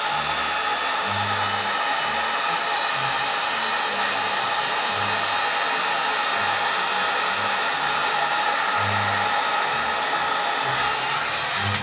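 Heat gun blowing steadily as it shrinks heat-shrink tubing over a soldered resistor on a wire; it cuts off near the end.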